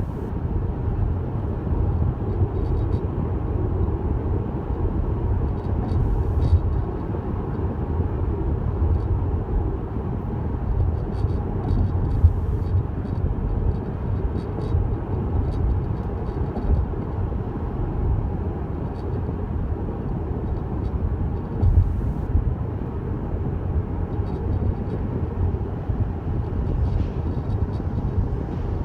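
Inside a new Tesla Model S, a steady low rumble of road and running noise, with faint, irregular short ticks or creaks. The owner calls the abnormal noise severe.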